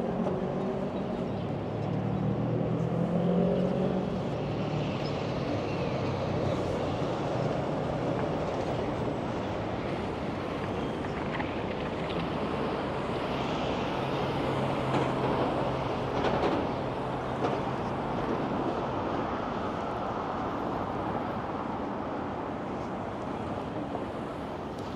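City street traffic: a steady wash of passing cars, with a low engine hum in the first few seconds and again around the middle.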